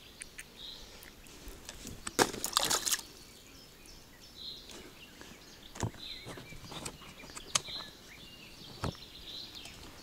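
Riverbank ambience: a brief splash of water about two seconds in, a bird calling again and again with a short high note, and a few light clicks.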